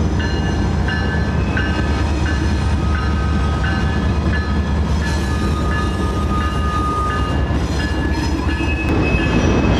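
A diesel-hauled train rolling past with a steady low rumble. Short high metallic tones ring out repeatedly, about one every half second to second, over the rumble.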